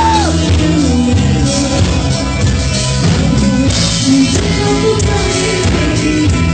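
Live rock band playing: electric guitar, drums and keyboard, with a woman singing over them.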